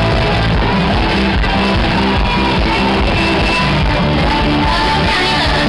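Loud live band music with a steady beat, amplified over the stage speakers.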